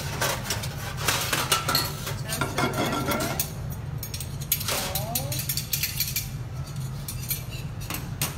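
Metal spoon and tongs clinking and scraping against pans and a pot while cooking, as a string of short sharp clinks over a steady low hum.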